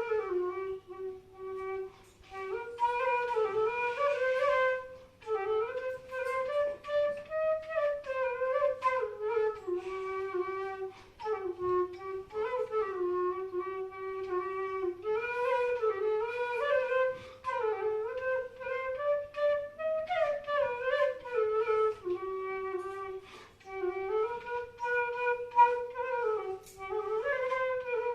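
Bansuri (Indian bamboo flute) playing a slow solo melody, a single line that glides and bends between notes with short ornaments and brief breaths between phrases.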